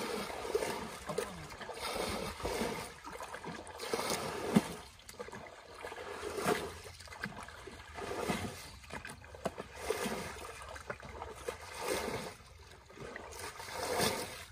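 Muddy water splashing and trickling as it is bailed out of a drained fish pond with buckets, a splash every second or two.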